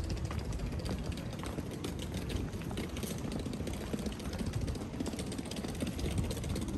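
City street ambience: a steady low engine rumble with many small clicks and taps over it.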